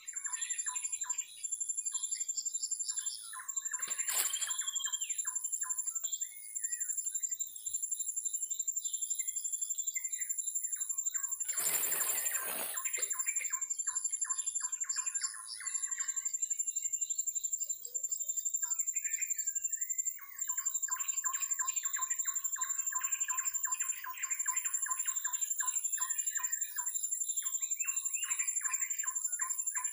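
Birds chirping and calling in dense, rapid runs, over a steady high-pitched whine and a regular high pulsing. A brief rustling noise about twelve seconds in.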